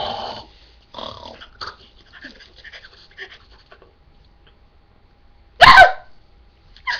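A person making silly animal-like vocal noises: scattered breathy huffs, then a short, loud, high yelp with a bending pitch about five and a half seconds in, and another yelp starting at the very end.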